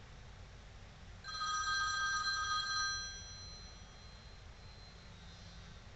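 A telephone ringing: one ring of several steady tones about a second in, lasting about a second and a half and then fading away, against quiet room tone.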